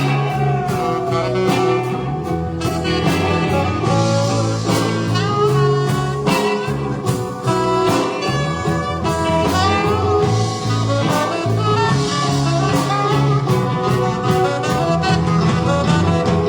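Saxophone solo in a blues-jazz style, playing a bending melody over a band with bass, guitar and drums.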